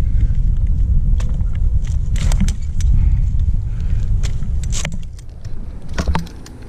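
Wind rumbling on a helmet-mounted camera microphone, with scattered metal clinks and jangles of climbing hardware such as carabiners and rigging as the climber moves on the trunk.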